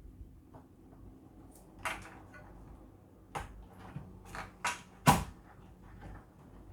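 Computer parts being handled and fitted during assembly: a few sharp clicks and knocks, the last and loudest about five seconds in.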